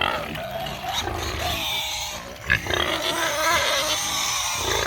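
Hungry pigs squealing and grunting without pause as they wait to be fed. One sharp knock sounds about halfway through.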